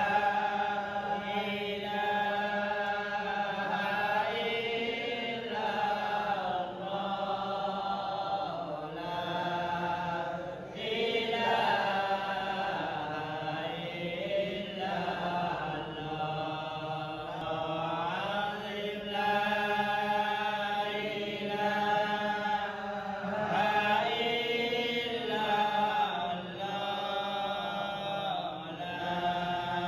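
Melodic Islamic devotional chanting: a voice holding long, gliding notes of several seconds each over a steady low drone.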